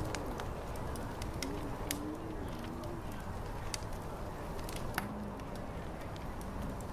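Tavern-style ambience: a wood fire crackling with scattered sharp pops, the loudest about five seconds in, over a steady low rumble. Soft, low wavering tones run through the first three seconds and return briefly around five seconds in.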